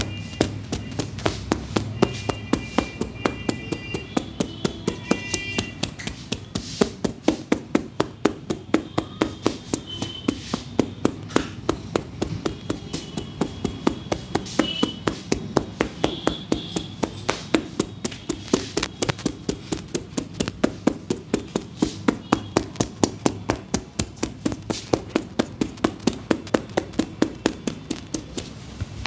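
Percussive massage strikes in a fast, even rhythm of about three sharp taps a second, the chopping and tapping strokes of an Indian barber's massage.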